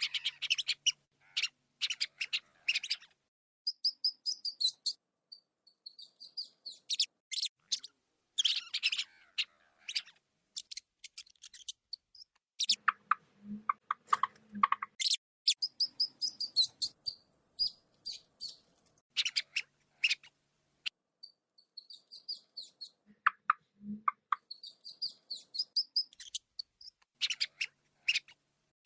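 Rats squeaking: quick runs of short, very high-pitched squeaks, coming in bursts with brief pauses between.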